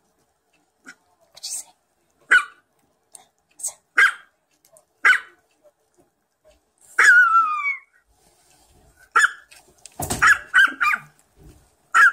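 Chihuahua barking in short, sharp yips about once a second, with one longer whining cry midway that falls in pitch, then a quick cluster of yips and a low bump near the end.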